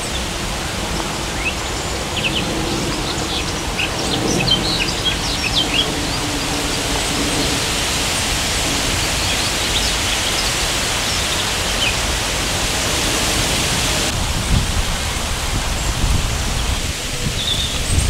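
Small birds chirping in short high notes, a cluster of them in the first few seconds and a couple more near the end, over a steady rush of wind through tree foliage.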